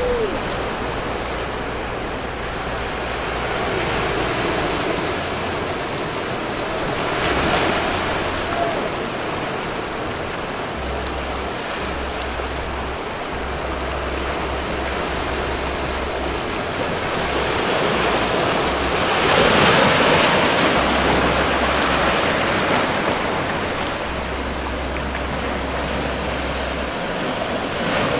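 Small ocean waves breaking and washing over a shallow rocky reef shelf, a steady rush of surf that swells twice: once about a quarter of the way in, and more strongly about two-thirds of the way through.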